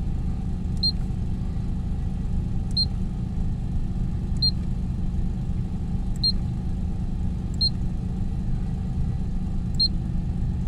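Short high beeps from the Oldsmobile 98's digital dashboard information center, six of them at uneven intervals, each with a light click, as the display is stepped from one reading to the next. Under them the car's engine idles with a steady low rumble heard from inside the cabin.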